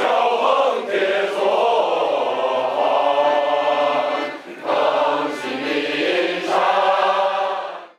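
Choral singing: many voices holding long notes together, dipping briefly about halfway through and stopping abruptly at the end.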